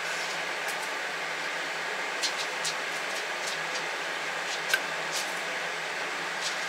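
Steady hiss of a lit gas hob burner heating a kettle of water, with a few light clinks of a spoon against a coffee jar.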